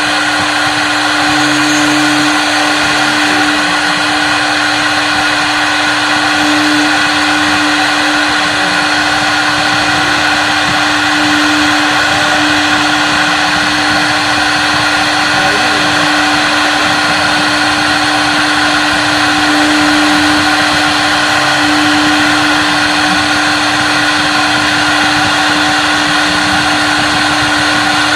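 CNC wood router running and cutting wood: a steady high spindle whine over the constant rush of the bit cutting, without breaks.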